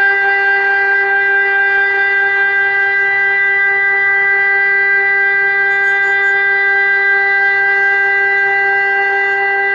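ELMIK NERO 600 four-horn electronic siren sounding one steady, unwavering tone rich in overtones: the continuous tone of the Czech siren test.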